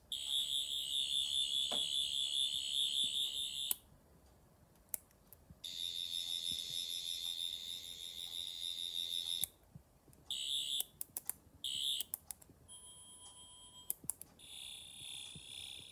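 Rubbertoe Replicas 12th Doctor sonic screwdriver prop sounding its sonic effect, a high warbling electronic whine. It plays in runs of about three to four seconds with pauses between. In the middle come a few short bursts and button clicks, and the whine starts again near the end.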